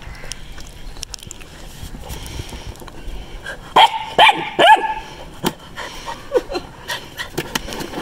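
Black puppy giving three quick, high-pitched yapping barks about four seconds in, then a few fainter, lower calls, as it tries to get at a piece of cake just out of its reach.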